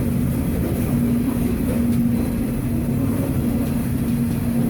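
Freight train rolling along at speed, heard from aboard one of its cars: a loud, steady rumble with a constant low hum running through it.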